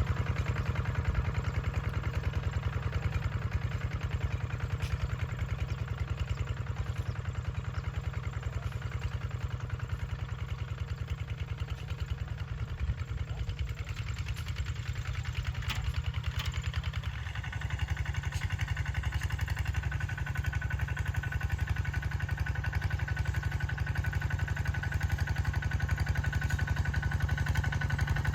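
An engine running steadily, with a higher steady whine joining in partway through.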